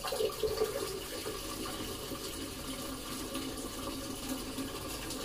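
Water running steadily into a washing machine's tub through its inlet valve. The machine keeps filling instead of starting to wash, because the pressure tube to its water-level sensor has come off and the sensor never registers the water level.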